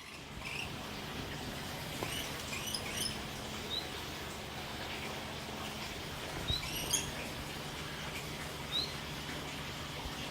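Small birds chirping: short high chirps every couple of seconds, with two quick runs of chirps, over a steady low hum.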